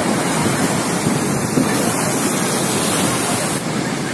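Sea surf breaking and washing up the sand in a steady rushing noise.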